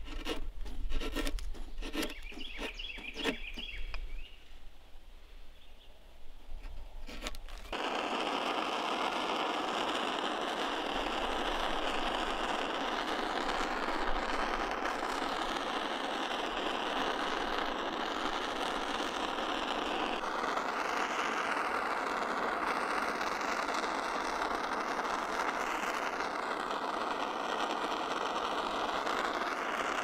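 A chisel pressed by hand into a wooden timber makes a few sharp cutting scrapes and knocks. About eight seconds in, a handheld propane torch starts abruptly and runs with a steady rushing hiss for the rest of the time as it chars the end grain of the timber.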